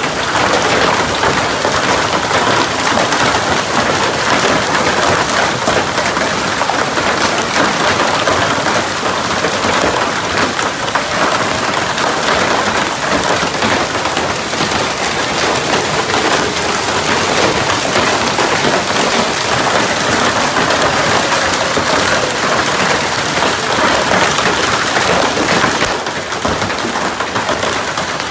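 Heavy hail pelting a pickup truck, plastic wheelie-bin lids and the ground: a dense, steady clatter of countless small impacts that eases a little near the end.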